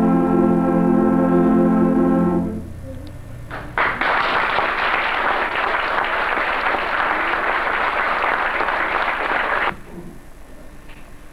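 Concert wind band holding a sustained chord that fades out, then about six seconds of audience applause that cuts off suddenly.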